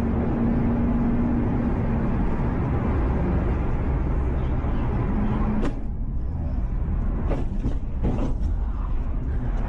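A car's engine and tyre noise heard from inside the cabin at speed in a road tunnel, with a steady hum. About six seconds in, it breaks off with a sharp knock, and the noise drops; several more sharp knocks and thumps follow near the end.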